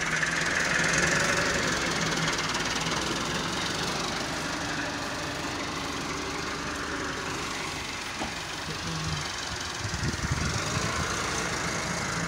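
Diesel engine of a Belarus tractor with a front-end loader, running steadily as the loader lifts a bucket of straw. A rougher spell of low knocking comes around ten seconds in, as the bucket tips its load into the trolley.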